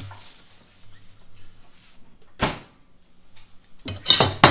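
Kitchen microwave door: one sharp clack about two and a half seconds in as it is opened, then a louder bang with a rattle near the end as it is pushed shut.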